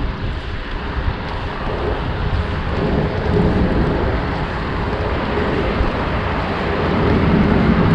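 Wind rushing over the microphone and tyre noise from a dirt jump bike rolling along, a steady outdoor noise that swells about three seconds in and again near the end.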